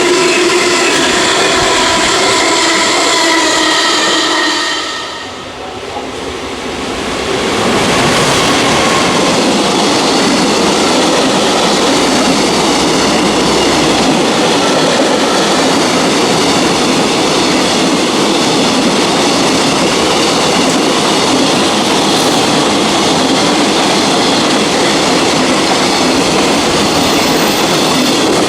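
Freight train passing at speed. A steady whine made of several held tones lasts about five seconds. After a brief dip, the continuous rolling and clatter of the wagons going by takes over for about twenty seconds.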